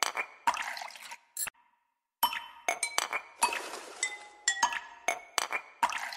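A metal slotted spoon clinking and scraping against the inside of an aluminium pressure cooker while stirring in hot oil: a run of sharp ringing clinks, broken by a short silence about two seconds in.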